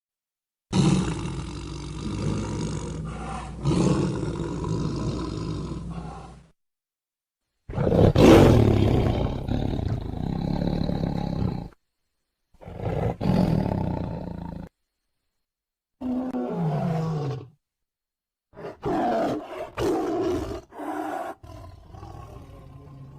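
Tiger roaring, in about five separate recordings one after another, each cut off abruptly into silence. The fourth one falls in pitch.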